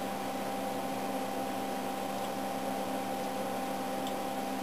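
Steady hum of electronic test equipment and its cooling fans, with a few faint steady tones held throughout.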